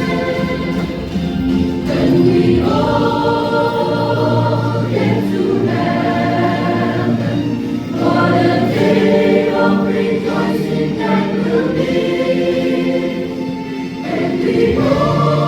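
A choir singing a hymn in sustained, held chords that change every second or two.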